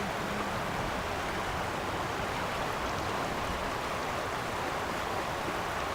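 River water rushing steadily over a rocky bed, an even continuous noise.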